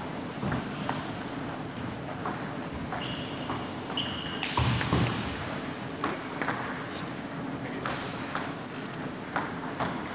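Celluloid-type table tennis ball clicking off paddles and the table in a rally, with a few short high squeaks from shoes on the wooden floor. A louder thud comes about four and a half seconds in, then scattered single ball clicks follow.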